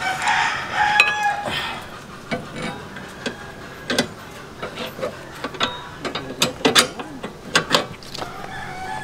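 Wrench clicking and clinking against the nut of a new front stabilizer link as it is fitted and tightened at the strut. There are scattered sharp metal clicks, with a quick run of them near the end.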